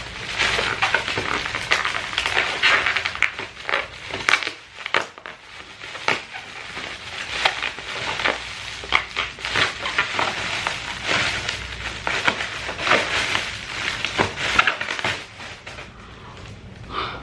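Plastic bubble wrap crinkling and crackling with many quick sharp clicks as hands pull it open and work a book out of it. The crackling dies down near the end.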